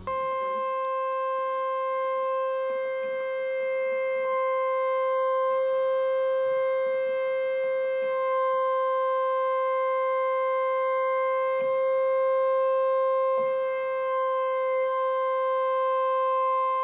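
1973 Galanti (GEM) Caravan R6 portable organ holding one long, steady note with no vibrato. A couple of faint knocks come near the end.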